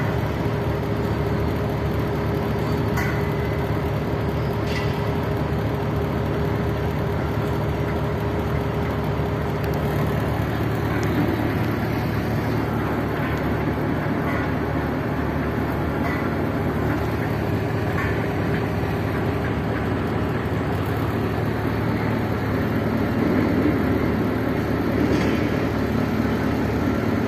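A heavy engine running steadily, a constant low drone.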